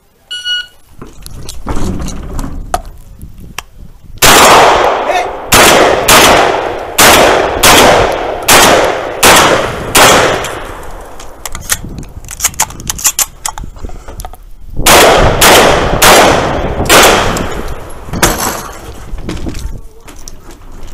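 A shot timer's start beep, then competition gunfire: a quick string of about eight gunshots roughly two-thirds of a second apart from about four to ten seconds in, ending in pistol fire, and after a pause a second string of four or five shots from about fifteen to eighteen seconds in.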